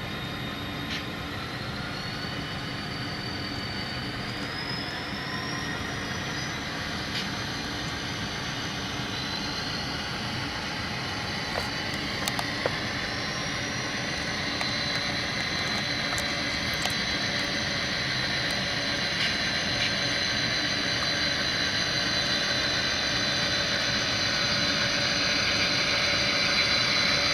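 Tsunami sound decoder in an HO-scale model diesel locomotive playing a turbocharged EMD 645 prime mover: a steady engine hum that grows slowly louder, with a high turbo whine rising in pitch twice and then holding. A few faint clicks.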